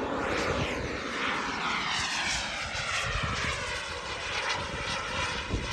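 Boomerang Ranger RC jet's small turbine engine whining in a fast, low flyby, its pitch sweeping downward as it passes.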